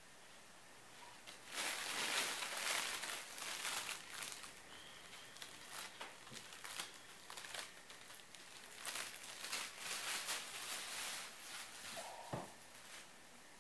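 Irregular crinkling and rustling, starting about a second and a half in and coming in bouts until near the end.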